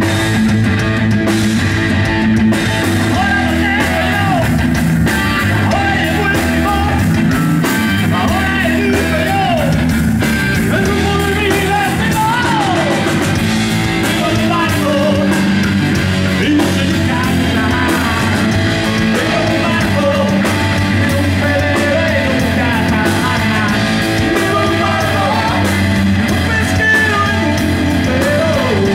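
A live rock band playing: amplified electric guitar, electric bass and a drum kit, with singing over them.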